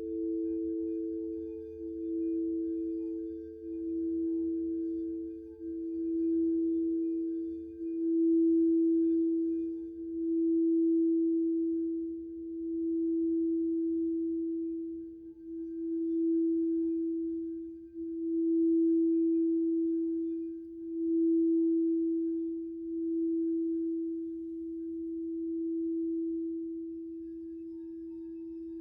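Crystal singing bowls ringing a sustained low tone that swells and fades about every two seconds. A second, higher tone dies away about halfway through.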